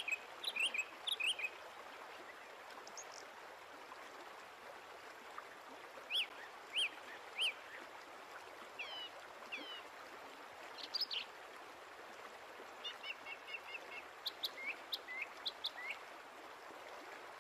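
Small birds chirping in short, scattered calls, including three quick notes in a row about six seconds in and a fast run of notes near the thirteen-second mark, over a steady rush of noise.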